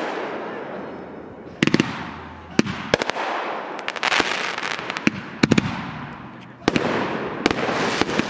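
Consumer (Class C) aerial fireworks bursting overhead: a string of sharp bangs about every second, some in quick pairs, each followed by a crackling tail that fades away.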